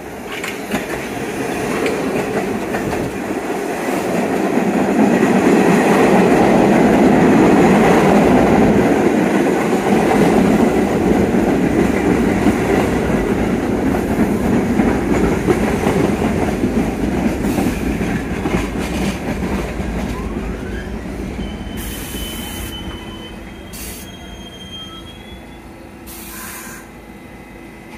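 R68 subway train pulling into the station: a rumble of wheels on rail that builds to its loudest a few seconds in, then slowly fades as the train slows. Near the end come brief high squeals and a few short hisses as it stops.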